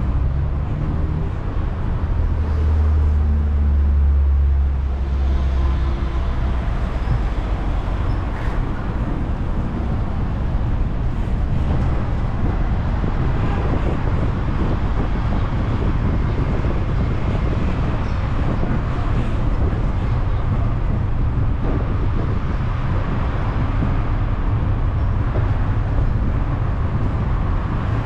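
Steady road rumble of a sightseeing road train on the move, its engine and tyres running on city streets. A deeper engine drone swells for a few seconds near the start.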